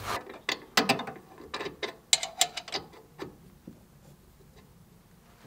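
Irregular clicks and small knocks of tools and parts being handled during the mower oil change, thinning out after about three seconds.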